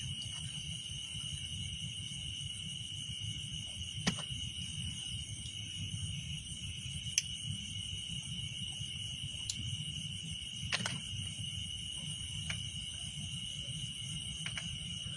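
Night insects, crickets, keeping up a steady high trill, over a low rumbling noise, with a few sharp clicks scattered through.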